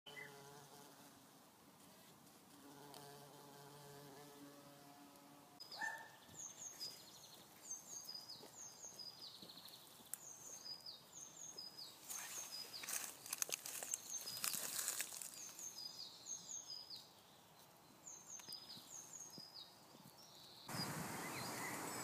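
A bumblebee queen buzzing in flight, a low steady hum for the first five seconds or so. After that a bird sings repeated short, high, falling notes, with a stretch of rustling crackle partway through.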